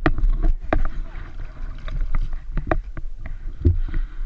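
Irregular knocks and clunks on a plastic kayak hull and its camera mount, over a steady low rumble of wind on the camera.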